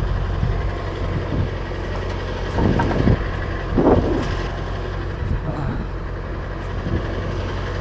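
Truck engine running with a steady low hum.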